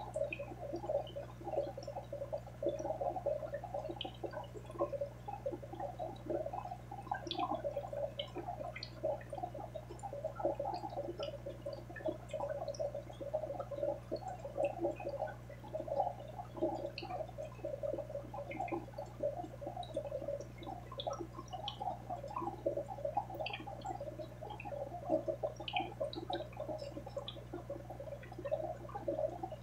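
Aquarium water bubbling and gurgling without a break, with scattered small ticks and a steady low hum underneath.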